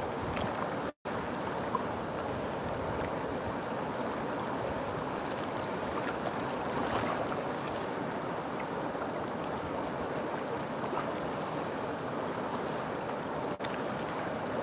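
A river flowing, its water rushing steadily, with a momentary dropout about a second in.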